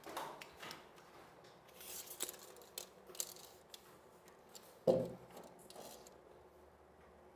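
Quiet hand-work noises: small clicks and brief scrapes of tools and materials being handled, with one louder dull knock about five seconds in.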